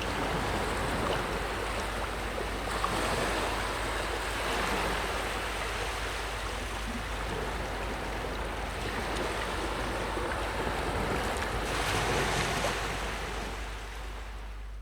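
Ocean waves breaking and washing on the shore in a continuous surf, swelling twice and easing off near the end.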